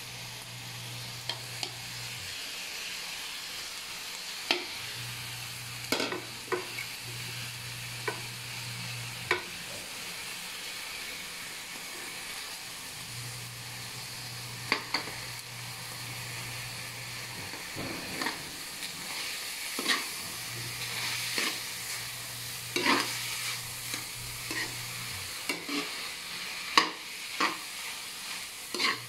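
Lumpia filling sizzling as it stir-fries in a metal wok, with a metal spatula stirring and scraping it, giving sharp scrapes and clinks against the pan every second or two over a steady frying hiss.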